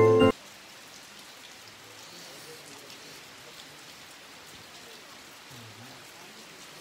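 Steady rain falling, an even soft patter. Background music cuts off abruptly right at the start.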